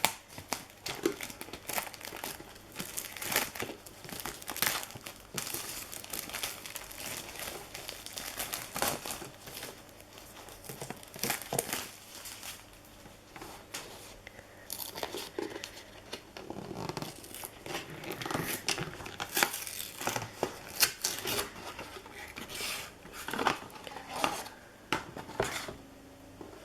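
Packaging being unwrapped by hand from a toy storage tin: irregular crinkling, rustling and tearing throughout.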